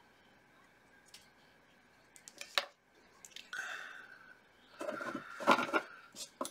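Small hobby tools being handled on a work table: a few sharp clicks about two and a half seconds in, then louder clicking and scraping handling noise around five seconds in, over a faint steady hum.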